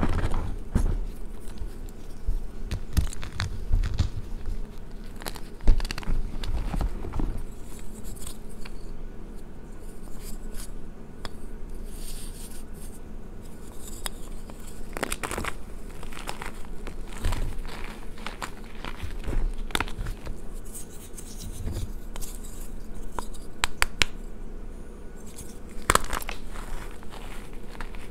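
Reformed gym chalk discs being squeezed and crumbled in bare hands over a tub of loose chalk powder: irregular crunching and crackling with soft powdery rustling, and one louder crack about six seconds in.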